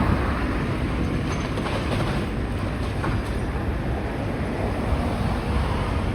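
Demolition excavator pulling down brick houses: a steady low rumble of the machine with crunching and clattering of rubble, and a few sharp knocks.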